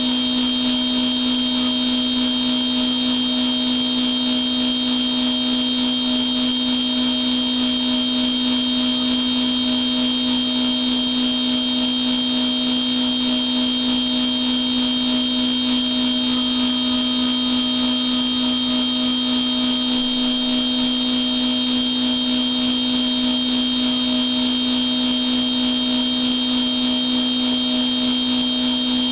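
CNC milling machine running at a steady speed: an unchanging low hum with a steady high whine over it, and a faint extra tone joining for a few seconds midway.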